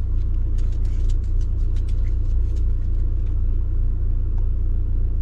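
A motorhome's engine idling with a steady low rumble, heard from inside the cab. Scattered light ticks sound over it in the first couple of seconds.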